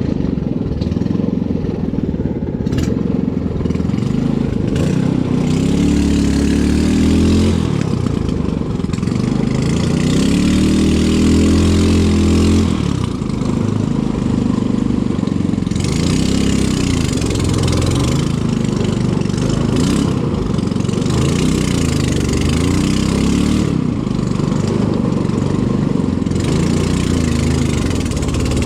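A motor engine running continuously, its speed rising and falling again and again.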